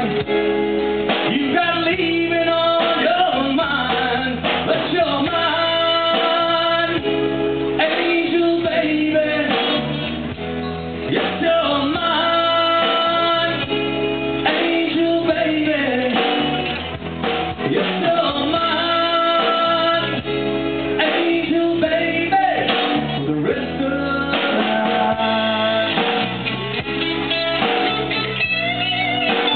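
Live country-rock band playing a slow song: electric and acoustic guitars, electric bass and drum kit, with a male lead vocal. Near the end a harmonica comes in.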